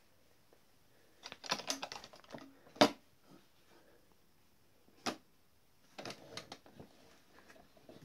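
Wooden lids and trays of a cantilever sewing box knocking and clattering as they are handled, in short clusters of clicks. One sharp wooden knock about three seconds in is the loudest, and another single knock comes about five seconds in.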